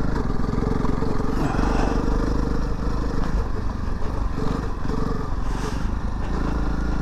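Honda CRF300 Rally's single-cylinder four-stroke engine running as the motorcycle is ridden along, its note shifting a little in pitch.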